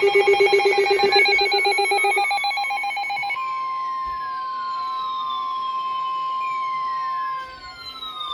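Weather alert radios sounding their alarm for an incoming warning. First comes a rapidly warbling electronic alert tone for about three seconds, then a single steady high tone, the NOAA Weather Radio 1050 Hz alert tone, which cuts off about seven seconds in. Tones falling in pitch sweep down across it repeatedly.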